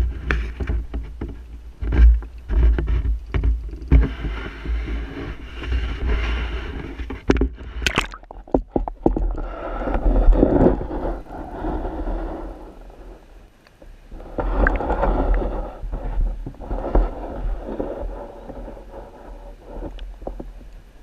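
Water rushing and gurgling around a GoPro Hero 4 in its waterproof housing as it is dipped and held underwater, over a low rumble, with a few sharp knocks near the start and about eight seconds in.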